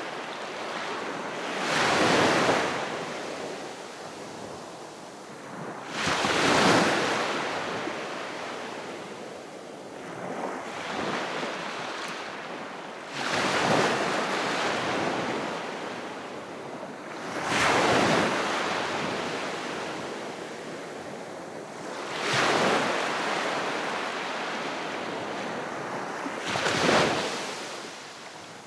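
Calm sea waves breaking on the shore. Six breaks come at a slow, even pace, one every four to five seconds, each swelling quickly and then washing back slowly.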